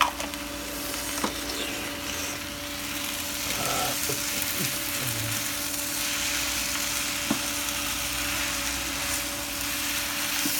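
Stir-fried glass noodles with seafood and vegetables sizzling in a frying pan as they are tossed with a wooden spatula and chopsticks, with a few light knocks of the utensils against the pan over a steady low hum.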